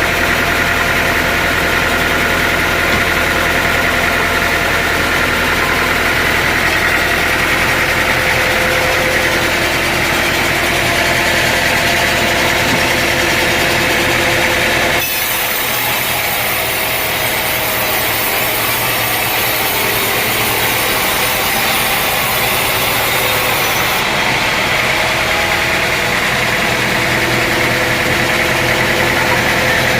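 Sawmill running, its engine going steadily while the saw cuts wood. About halfway through, the sound changes abruptly for several seconds: less low rumble and more hiss.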